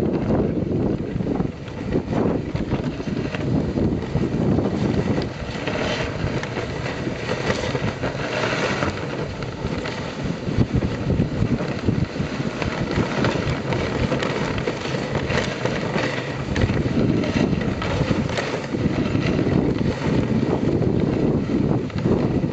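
Wooden dog sled gliding over a snow trail behind a Samoyed team: a steady rushing and scraping of the sled over the snow, with wind buffeting the microphone.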